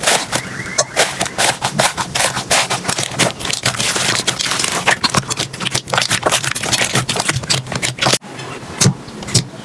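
Slime being squeezed and pressed by hand, giving dense, irregular crackles and small pops over a low steady hum. The crackling dips briefly and changes texture about eight seconds in.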